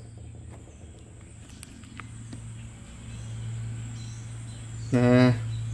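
Steady low hum, a little louder from about halfway, with a few faint clicks; a man's voice speaks briefly near the end.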